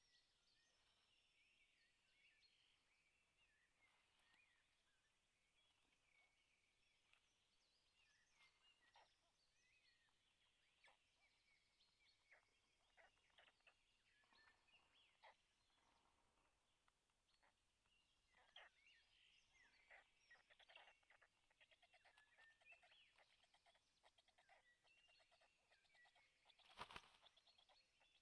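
Faint forest songbirds singing, many short chirps and trills that grow busier in the second half. A brief, louder knock or rustle stands out near the end.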